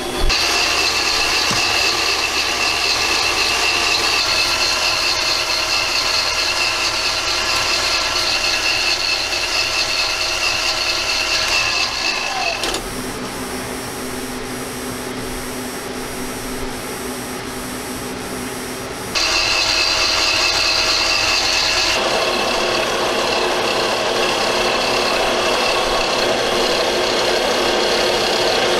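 Mini lathe running with a steady motor whine as it turns a stainless steel screw blank. About halfway through, the sound changes for roughly six seconds to a quieter, lower hum, then the full whine returns.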